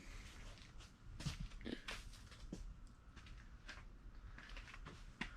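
Faint, scattered knocks and taps at irregular spacing over a low steady hum, the sharpest one near the end.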